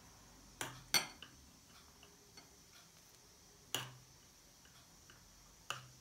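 Metal spoon clinking against a glass jar and a ceramic bowl while soft butter is scooped out: a few short sharp clicks, two close together about a second in, one near four seconds and one just before the end, with near quiet between.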